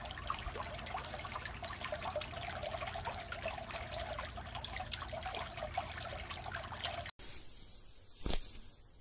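Swimming-pool water trickling steadily, with many small splashes. It cuts off about seven seconds in, and a single brief thump follows near the end.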